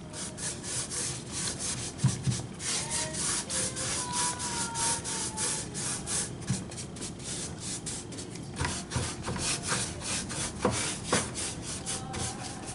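A medium-sized Annie Sloan paint brush stroking thinned chalk paint back and forth over old crackled, painted wood, at about three to four quick scratchy strokes a second. A few light knocks are mixed in, about two seconds in and again near the end.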